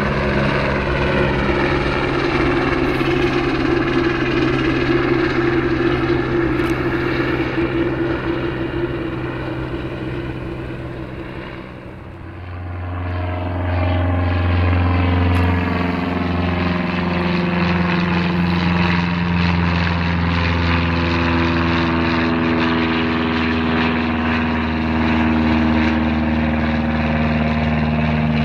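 A helicopter flying past, its engine and rotor drone fading away over the first dozen seconds. Then a single-engine Cessna's propeller engine comes in quickly and holds a steady, loud drone as the plane climbs out overhead.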